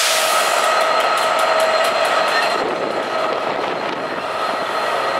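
Locomotive-hauled passenger coaches rolling past close by, their wheels clicking rapidly over the rail joints for the first couple of seconds, with a steady whine throughout.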